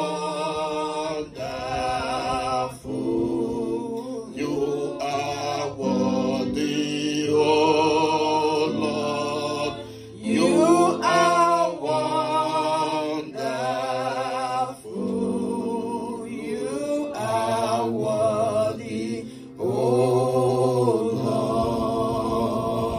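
A woman singing a slow worship song through a handheld microphone, in long held phrases with vibrato, with short breaks between phrases.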